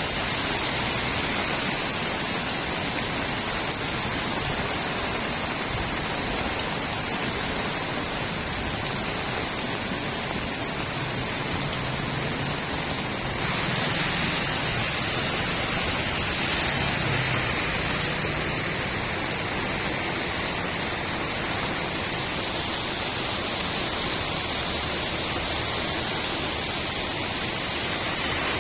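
Steady rain falling on a street: an even hiss with no single drops standing out. About halfway through it grows a little louder and brighter, then settles again.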